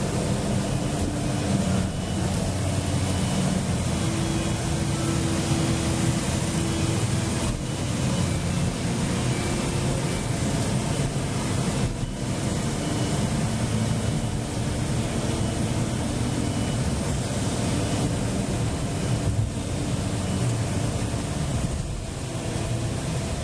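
Cabin noise of a 2005 Nissan Maxima 3.5 SL under way: a steady hum of its 3.5-litre V6 engine and tyre and road noise.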